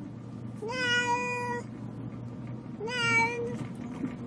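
A cat shut in a pet carrier meowing twice: two long meows, each rising at the start and then held, about two seconds apart.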